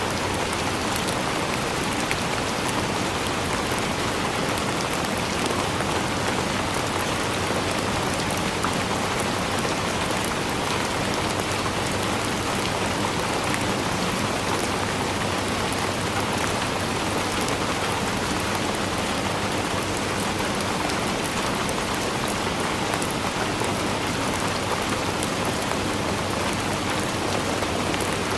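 Overhead rain shower head running, its water falling steadily onto the shower floor with an even, unbroken splashing hiss.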